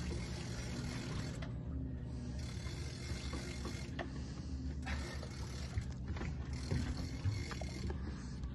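Large big-game fishing reel being cranked against a hooked tuna, its gears giving a ratcheting, mechanical whirr, over the steady low hum of the boat's engine.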